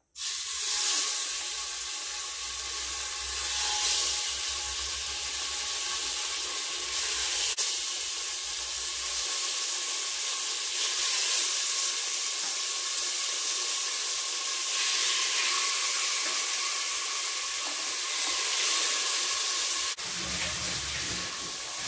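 Marinated sardines sizzling steadily in hot coconut oil in a pressure cooker as they are laid in to fry.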